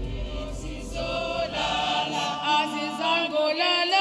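A choir singing in harmony, the voices coming in about half a second in and growing fuller, over a low music bed that fades out about two seconds in.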